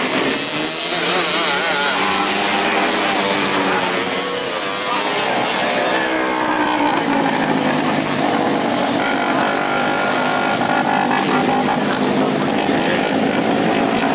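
Several 250cc winged mini sprint cars racing on dirt, their engines revving up and down as they go through the turns and pass by, several engine notes overlapping.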